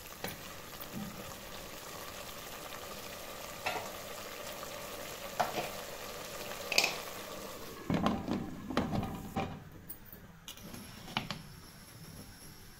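Potato and cauliflower sizzling in masala in an aluminium pressure cooker, with a few sharp knocks of a wooden spoon on the pot. About eight seconds in come a run of metallic clunks and scrapes as the pressure cooker lid is fitted and closed, and after that the sizzling is quieter.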